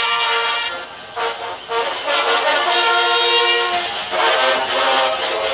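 Brass band playing kullawada music in long, held chords, with a brief drop in volume about a second in.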